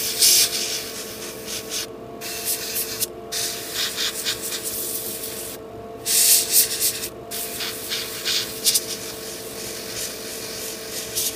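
Gravity-feed airbrush spraying a dark pre-shade coat: a hiss in bursts, cutting out briefly about two, three, six and seven seconds in as the trigger is let off. A steady hum runs underneath.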